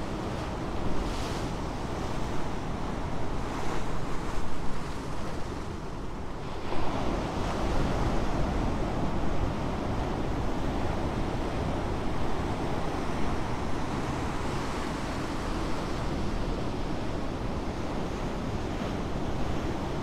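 Ocean surf breaking and washing into foam, a continuous rushing wash that swells fuller and louder about six and a half seconds in.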